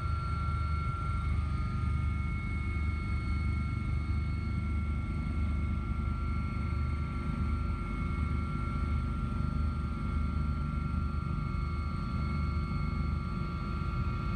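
Helicopter in flight heard from inside the cabin: a pulsing low rotor and engine rumble with a steady high turbine whine over it.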